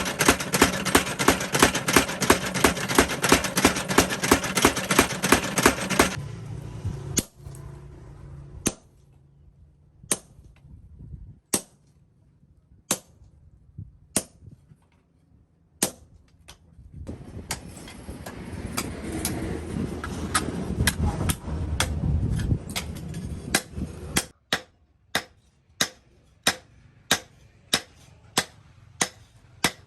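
Steel being hammered at a forge. A fast, even run of blows, about four or five a second, stops about six seconds in. Single ringing strikes follow, with a steady rushing noise from about seventeen to twenty-four seconds, and then blows come about twice a second.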